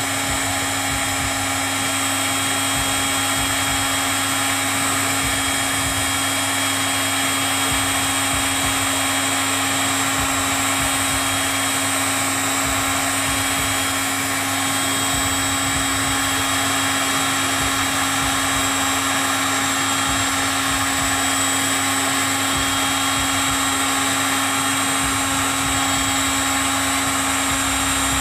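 Handheld hot air gun (heat gun) running steadily: a constant motor hum with a rush of blown air.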